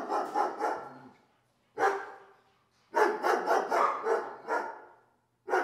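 Dog barking in quick runs of barks, about four or five a second, with short pauses between the runs and a single bark about two seconds in.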